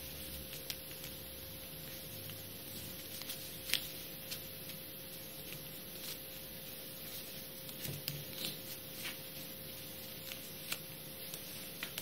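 A small square of origami paper being folded and creased by hand: faint, scattered crinkles and taps, the sharpest about four seconds in, over a steady hum and hiss.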